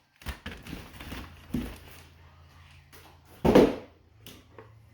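Handling noises of an RC crawler's packaging and parts being unpacked: scattered light taps and clicks, with one louder, brief handling noise about three and a half seconds in.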